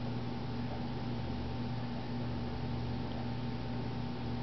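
Steady low hum with an even hiss: background room tone, with no distinct pats or taps standing out.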